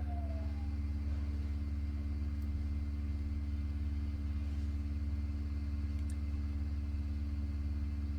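Steady low hum with a faint steady tone above it, unchanging throughout.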